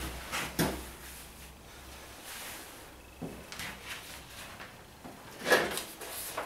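Handling noise of a person moving about at a workbench: scattered knocks and rustles, the loudest about five and a half seconds in.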